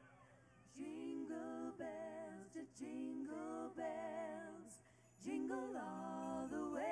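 Three women singing in close harmony into microphones, with little or no band behind them. They sing two phrases, pausing briefly about five seconds in.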